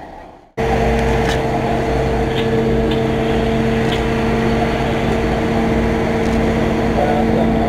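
Turntable ladder fire truck's engine running steadily at raised revs to drive the ladder, a constant drone with a steady whine over a low rumble, starting suddenly about half a second in. A few faint clicks sound over it.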